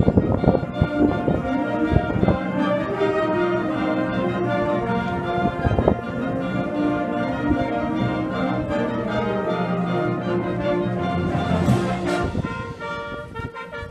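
High school marching band's brass section playing full held chords, with sharp percussion hits near the start and about six seconds in. A cymbal crash comes near the end, and the band drops softer after it.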